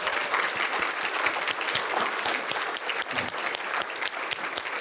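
A seated audience clapping in a steady round of applause.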